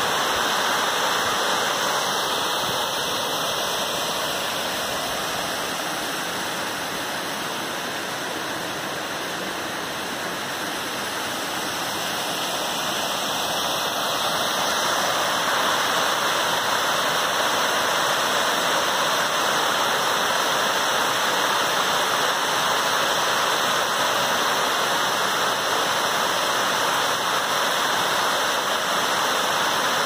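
Small waterfalls spilling over rock ledges into pools: a steady rush of falling water that grows a little louder about halfway through.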